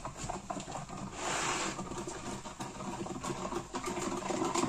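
Salt poured into a plastic bucket of brine cheese, a short hiss about a second in. Then plastic rustling and small clicks as the bucket is handled and covered.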